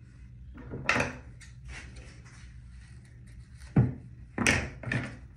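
Handling noises: a few short rustles and knocks, the sharpest a single knock a little under four seconds in, with louder rustling just after it.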